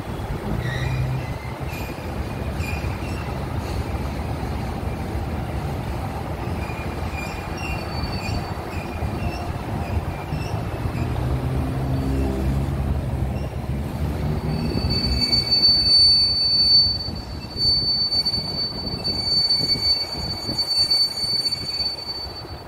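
Freight train of covered hopper cars rolling through a rail yard, its wheels rumbling on the rails. About fifteen seconds in, a steady high-pitched wheel squeal sets in and holds, with fainter squeal tones above it.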